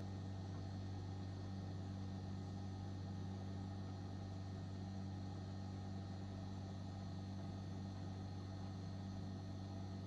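Compressor of a BougeRV 23-quart 12-volt fridge/freezer running: a steady, fairly quiet hum.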